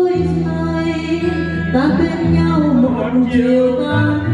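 A woman singing karaoke into a handheld microphone over a backing track, holding long notes, amplified through the speakers.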